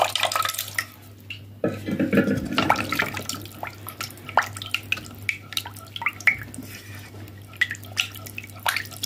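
Milk being poured into a pot, the stream stopping about a second in. Then a spatula stirring the milky mixture in the pot, with irregular scrapes and light taps against the pot.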